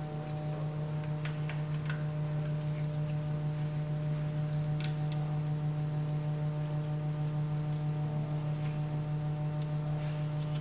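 A steady low hum with a stack of overtones runs throughout, with a few faint, light clicks of a wire terminal and small parts being handled and fitted onto an electrical terminal post.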